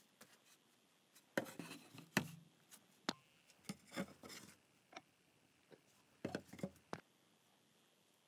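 Wooden plank and stick being handled by gloved hands on a cutting mat: scattered light knocks and scuffs as the wood is set down and picked up, with the busiest handling about a second and a half in and again near six seconds in.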